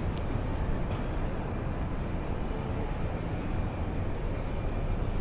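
Steady low rumble of busy city-street background noise, with no single sound standing out.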